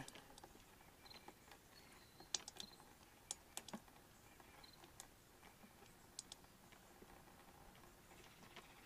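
Near silence with a few faint, irregular clicks from a hand-operated gear-lube pump on a quart bottle, being pumped to push gear oil up into an outboard's lower unit from the bottom drain hole.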